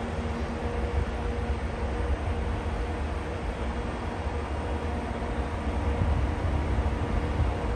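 Double-headed JR Freight electric locomotives humming steadily, a few held tones over a deep low rumble, with another tone joining about five seconds in.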